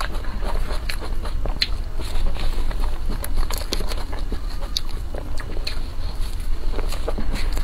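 Close-up eating sounds of someone eating whipped-cream cake: scattered wet mouth clicks and smacks, with a plastic fork scraping the cake, over a steady low hum.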